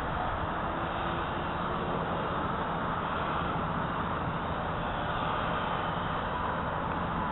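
Strong wind rushing over the microphone, with the faint steady hum of a small RC helicopter's motor and rotors underneath.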